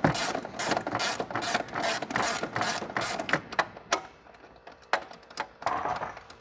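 Ratchet wrench clicking in quick, even strokes, about three a second, as it backs out a snowmobile's upper A-arm pivot bolt. The ratcheting stops a little past halfway, and a few scattered knocks follow.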